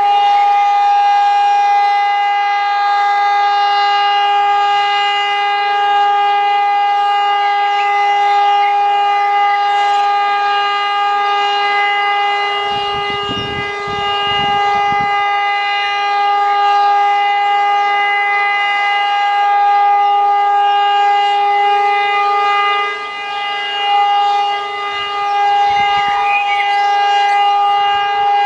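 E57 electromechanical civil-defence siren sounding one steady, unwavering tone: the continuous tone of the German all-clear (Entwarnung) signal, as opposed to the rising and falling warning howl.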